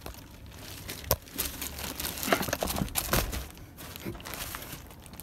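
Clear plastic seat cover crinkling and rustling as it is pressed and moved against. There is a sharp crackle about a second in and a cluster of crackles a little past two seconds in.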